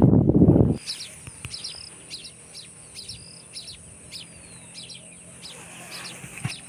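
A loud rough rush of noise for the first second, then small birds chirping outdoors: short high chirps, two to three a second, with a few brief whistles and one falling note, over a steady thin high-pitched buzz.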